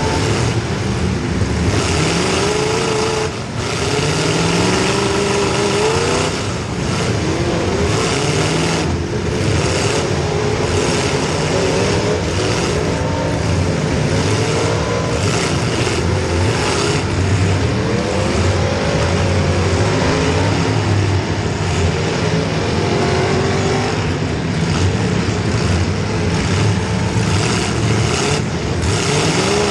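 Demolition derby car's small-block Chevy V8 revving up and down over and over under hard throttle, with several sharp crashes of car-on-car hits.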